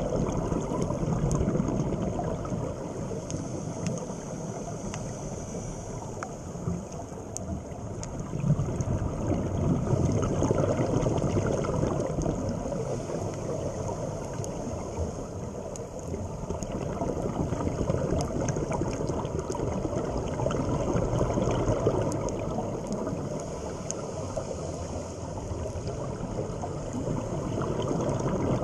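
Underwater sound of a scuba diver breathing through the regulator: a low gurgling rumble of exhaled bubbles that swells and fades about every ten seconds, muffled as heard through the camera's waterproof housing, with faint scattered clicks.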